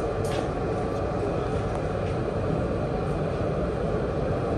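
Steady rumble of a Doha tram car running along the line, heard from inside the passenger cabin.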